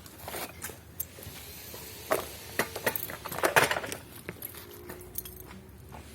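Irregular clinks and knocks of objects being handled, with a short burst of rattling about three and a half seconds in.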